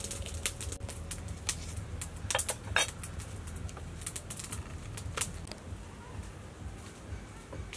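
Scattered crisp clicks and rustles of hands handling fresh lemongrass stalks and ginger against a woven bamboo basket, with a quick cluster of clicks about two and a half seconds in and a low hum underneath.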